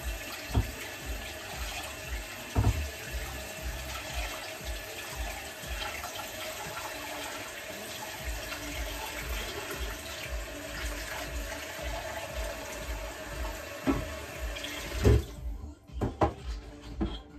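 Kitchen tap running into a sink while dishes are washed by hand, with occasional knocks of crockery. The water shuts off near the end, followed by several clinks and knocks of plates.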